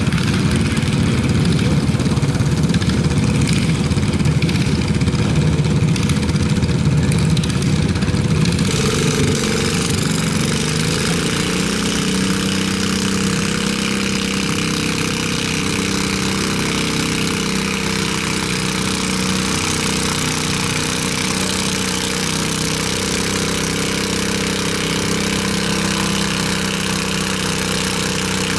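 John Deere garden tractor engine running, louder and rougher for about the first eight seconds, then settling into a steady idle.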